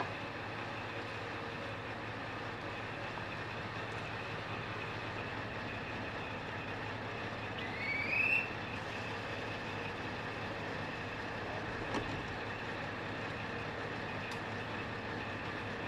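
KiHa 40-series diesel railcar standing with its engine idling, a steady drone. About eight seconds in, a short rising chirp sounds briefly over it.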